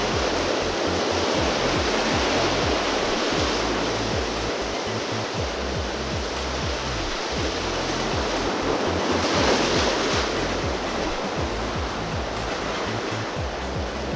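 Sea surf breaking and washing over shore rocks in a steady rush, swelling louder with a bigger wave about two-thirds of the way through. Background music plays underneath.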